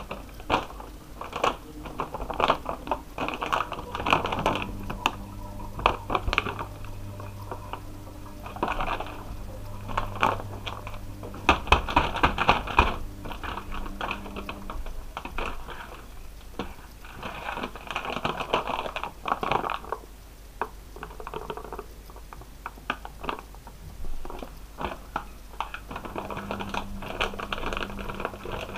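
Paper bag being handled and its top folded over by hand, crinkling and crackling in irregular bursts.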